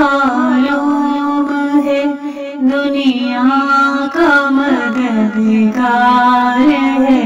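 Background music: a voice singing a melody over a steady low drone.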